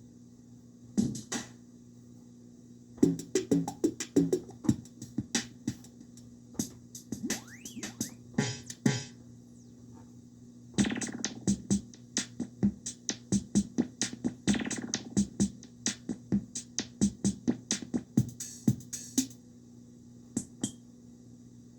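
Electronic drum and synth sounds from a Korg Electribe groovebox, played in stop-and-start bursts of short hits with pauses between them. About halfway through they settle into a steadier run of roughly two hits a second.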